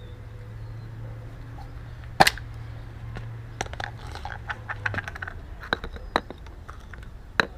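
Scattered sharp clicks and knocks from a tire-sealant can and its hose being handled, the loudest about two seconds in, over a low steady hum that fades out about five seconds in.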